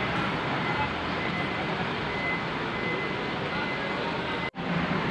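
Diesel engine of a Sinar Jaya coach running as the bus manoeuvres slowly, heard as a steady, even rumble with a haze of yard noise. The sound drops out sharply for an instant near the end.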